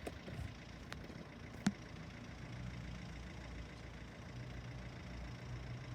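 A low, steady engine hum, with a single sharp click about one and a half seconds in.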